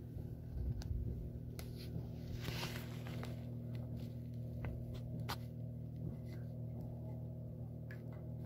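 Steady low hum of a boat's engine idling, with a few light clicks and a brief rustle about two and a half seconds in.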